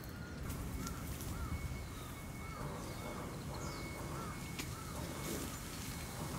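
A crow cawing repeatedly, a string of short caws about two a second that stops about four and a half seconds in, over a low steady outdoor rumble.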